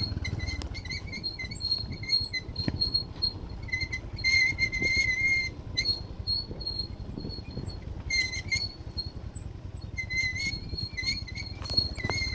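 A vehicle riding over a rough dirt road: a low rumble with scattered knocks from the bumps, and a high, steady-pitched squeak from the vehicle that comes and goes in short stretches.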